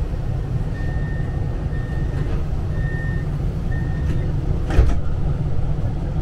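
Tram door-closing warning: four short high beeps about a second apart, then a brief hiss and thud as the doors shut, over the tram's steady low rumble.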